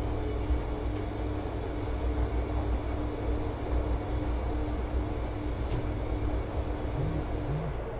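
Bosch front-loading washing machine in the main wash of a 90 °C cotton programme: the drum turning the laundry through soapy water, with a steady motor hum over a low, uneven rumble.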